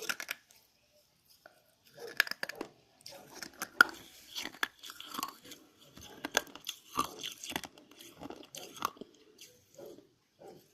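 A person chewing hard, crunchy food close to the microphone. There is a quick run of crisp crunches from about two seconds in, thinning out near the end.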